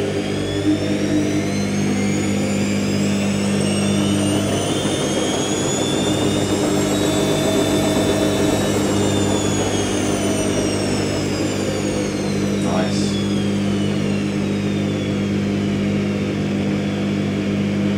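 IKEA RENLIG IWM60 washing machine motor whining as the drum spins up. Its pitch rises for about eight seconds, then falls as the drum slows again, over a steady low hum. The owner finds the motor bearings rough and the spin a bit screechy.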